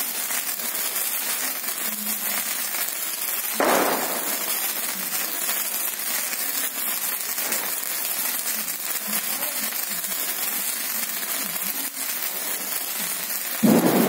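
Hand-held Diwali sparklers burning with a steady crackling fizz, with a louder burst about four seconds in and another near the end.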